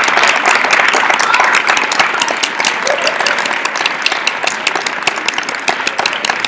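Audience applauding, the clapping thinning out and growing quieter toward the end.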